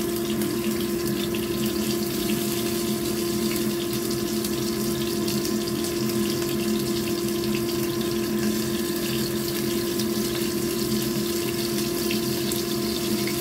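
Rice-flour-coated salted fish sizzling and crackling in hot oil in a small frying pan as more pieces are laid in one after another. A steady low hum runs underneath.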